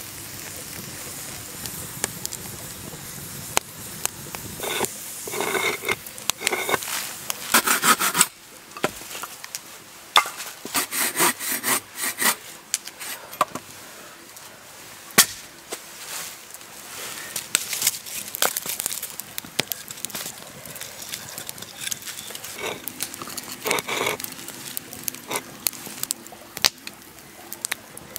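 Wood fire crackling with sharp pops, broken twice by stretches of rhythmic rasping strokes: a hand saw working through a log.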